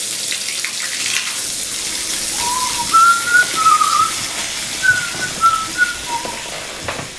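Bath tap running, filling the tub with a steady rush of water. About two and a half seconds in, a person starts whistling a short tune of clear single notes over it.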